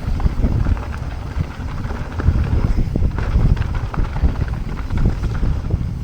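Mountain bike riding fast down a dirt trail: wind buffeting the microphone over a low rumble of tyres, with frequent short knocks and rattles as the bike runs over bumps.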